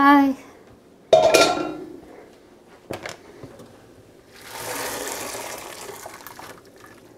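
Boiled cardoon stalks draining in a colander over a stainless steel sink. There is a loud clank of the pot or colander about a second in, then a rush of water draining away for about two seconds.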